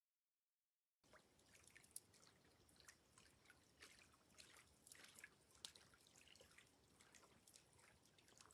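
Near silence, with faint, irregular drips of water starting about a second in.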